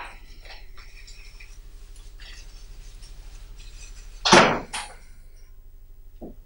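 Low steady hum, broken about four seconds in by one sudden, loud, sharp sound and a fainter one just after it.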